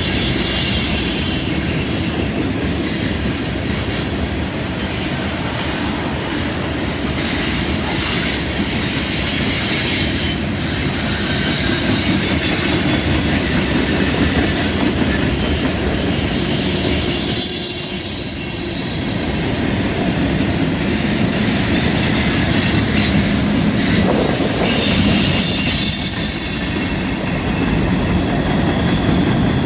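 Freight cars rolling past on a curve, steel wheels squealing against the rails over a steady low rumble and clatter. The squeal comes and goes in strength.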